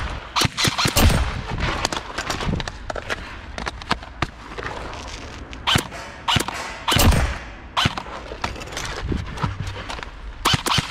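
M4-style airsoft rifle shooting single shots and quick short bursts in irregular clusters, heaviest about a second in, around six to seven seconds in, and again near the end.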